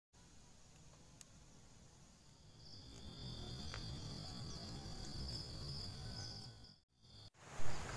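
Forest ambience with a steady, high-pitched insect drone that comes in about two and a half seconds in over a low rumble. The drone cuts off abruptly near the end, and a sudden louder rush of noise follows.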